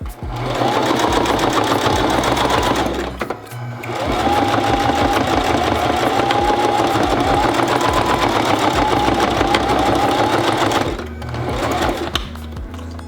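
Electric sewing machine stitching at a steady speed in two runs, a short one and then a longer one after a brief stop about three seconds in, going over the binding at a screen corner again and again to reinforce it. Background music plays underneath.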